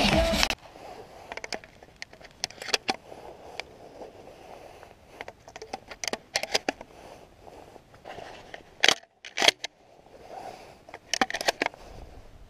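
Music that cuts off about half a second in, then rustling and handling of camouflage clothing and hunting gear, with scattered clicks and scrapes. Two sharp knocks come close together about nine seconds in.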